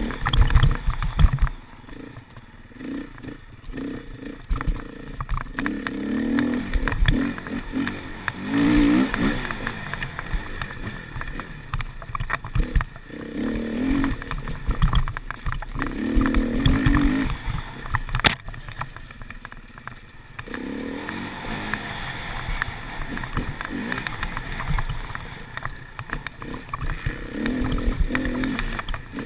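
Enduro dirt bike engine revving up and dropping back repeatedly under changing throttle as it is ridden along a dirt trail. A single sharp knock is heard about two thirds of the way through.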